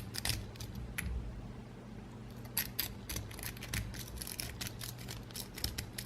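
Lock pick raking the five pins of an Alba N50 pin-tumbler padlock, with a tension tool in the keyway: a run of quick, irregular light metallic clicks and scrapes, coming in flurries.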